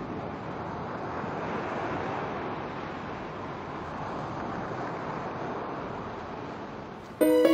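Sea surf washing in a slow, gentle swell and fall. Near the end, music starts suddenly and loudly.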